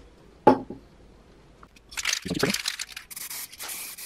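A sharp knock about half a second in, then an aerosol spray can hissing in short bursts from about three seconds in as it is sprayed over the cutting mat.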